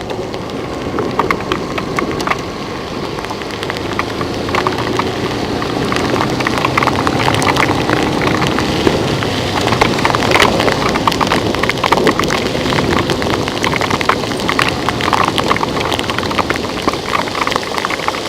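Large raindrops striking close by: a dense patter of separate drop impacts over a steady hiss of rain, growing heavier about four seconds in.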